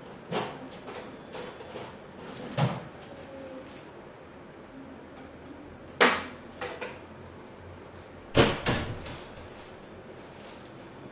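Handling knocks of tools and parts against each other while working on the back of a flat-screen TV: a few sharp clacks a couple of seconds apart, the two loudest about six and eight seconds in, some with a brief ring after them.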